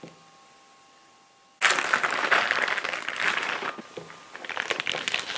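Clear plastic piping bag crinkling and rustling as it is handled and filled with choux paste from a wooden spoon. The crinkling starts suddenly about a second and a half in, after a stretch with only a faint steady hum.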